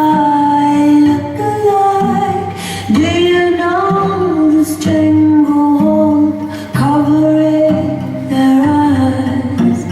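Song playing, with a woman singing long held, gliding notes over a bass line that changes note every second or two.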